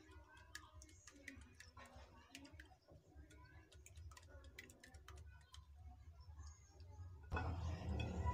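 Fork clicking and scraping against a bowl while stirring dry flour and baking powder: faint, irregular clicks. About seven seconds in it turns louder and busier as the fork beats egg in the bowl.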